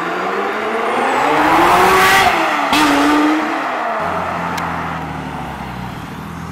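Ferrari F355's V8 revving as it pulls away, its pitch climbing for about two seconds, dropping at a gear change, then fading as it drives off. About four seconds in, a second car, a Nissan Skyline R33, takes over with a lower, steady engine note.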